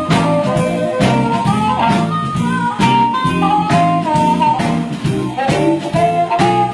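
Live blues band playing an instrumental break: a harmonica plays the lead with bending, sliding notes over a backing band with a steady drum beat.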